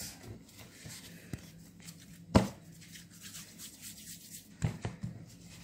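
Hands working soft yeast dough for sfenj in a bowl, pinching off pieces to shape into balls: soft rubbing and handling, broken by a few sharp knocks, the loudest a single thump about two and a half seconds in.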